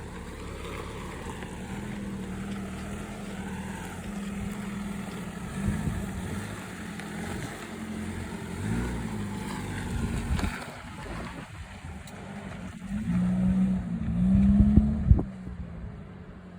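Toyota Tacoma Trailhunter's 2.4-litre turbocharged four-cylinder hybrid engine working under load as the truck crawls up a rocky 4x4 trail, its pitch rising and falling with the throttle and the loudest surges of revs near the end. A few sharp knocks, likely tyres or underbody on rock, come through in the second half.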